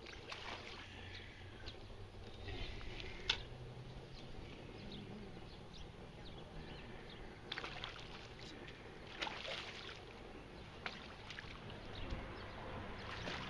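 Water splashing and sloshing as a hooked freshwater drum (sheepshead) is drawn to the bank and scooped up in a landing net, with scattered light clicks and taps; the heaviest splashing comes about halfway through.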